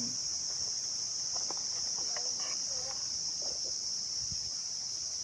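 Steady high-pitched insect chorus, unbroken throughout, with faint brief sounds now and then beneath it.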